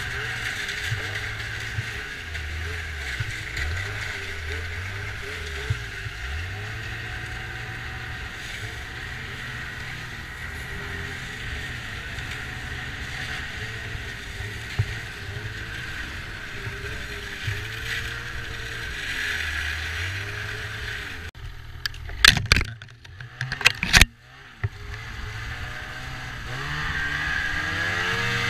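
Snowmobile engine running at changing speeds, with wind noise on the microphone. About three-quarters through come a few loud sharp knocks, then the engine revs up near the end.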